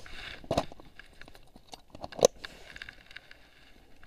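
Fishing gear being handled in an inflatable packraft: scattered clicks and knocks of hard plastic, with rustling. The two sharpest knocks come about half a second in and just after two seconds.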